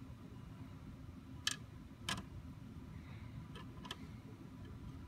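A few light clicks and taps from a plastic stick Wi-Fi antenna being handled and twisted onto the threaded antenna connector at the back of a mini PC: two sharper clicks about a second and a half in, half a second apart, then two fainter ones later.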